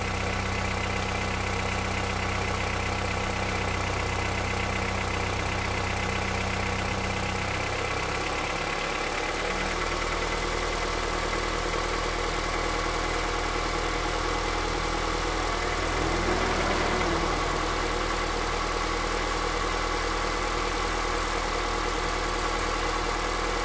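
Honda CR-V 2.4-litre four-cylinder petrol engine idling, its low note changing about eight seconds in as the transmission is shifted out of Drive and the load comes off. The owner hears a knock under load, as if the engine were running without oil, and it is still there with the drive belt removed.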